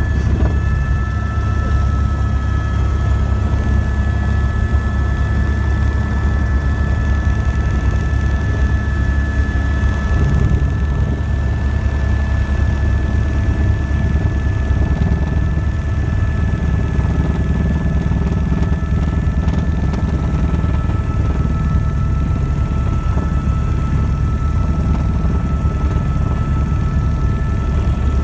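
Helicopter cabin noise in flight: a steady rotor beat with a steady high whine over it.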